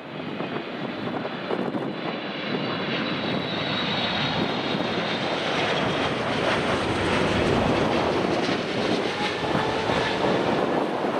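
Boeing 777 freighter's GE90 turbofan engines on landing approach, passing low overhead: a steady jet rumble that grows louder over several seconds. A high fan whine fades after a few seconds, and a tone falls slowly near the end.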